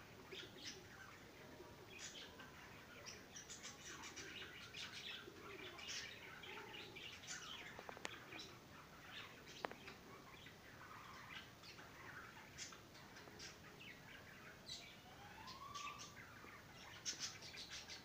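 Budgerigars chattering: a continuous run of faint short chirps and warbles, with a rising whistle near the end and a couple of sharp clicks in the middle.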